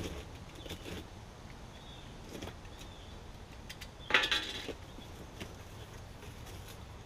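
Cardboard shipping box being opened by hand: scattered faint scrapes and rustles of the flaps, with one louder rip of cardboard about four seconds in.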